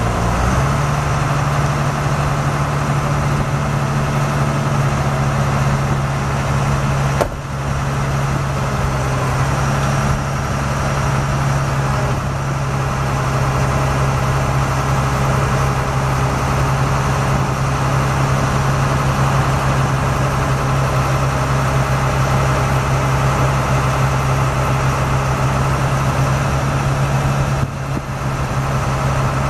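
Caterpillar 3116 inline-six diesel in a 1997 GMC C7500 truck idling steadily, with a brief drop in level about seven seconds in and again near the end.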